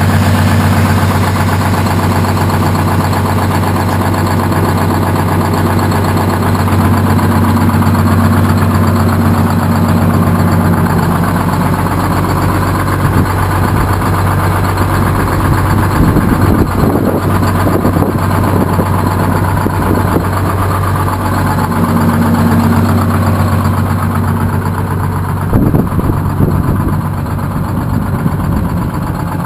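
A 1959 GMC truck's two-stroke Detroit Diesel engine running at a steady idle, with a few rougher, noisier stretches around the middle and about three quarters through.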